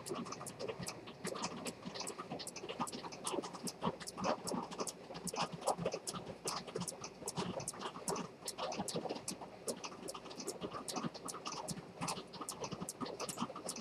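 Antique detent-escapement fusee pocket watch ticking close to the microphone, a steady run of sharp ticks at about three a second. Softer, irregular rustling runs underneath.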